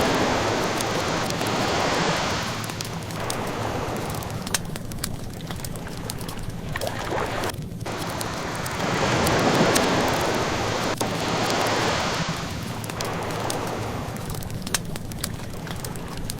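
Ocean waves washing in slow swells, with a surge near the start and another about nine seconds in, under the scattered small pops and crackles of a wood fire.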